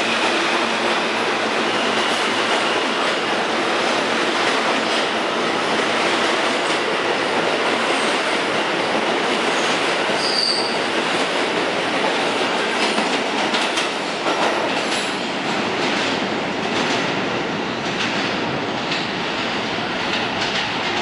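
New York City Subway R160A-1 train running past on the rails as it leaves the station, with a steady loud rumble of wheels on track and wheel squeal, including a brief high squeal about halfway through. The noise eases a little near the end as the train pulls away into the tunnel.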